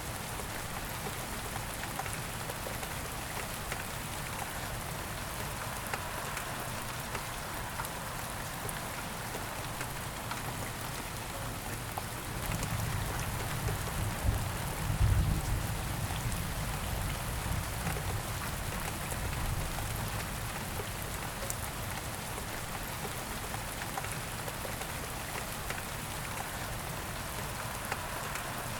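Steady rain falling on a surface, with scattered drips ticking through it. About halfway through a low rumble swells up and fades over a few seconds.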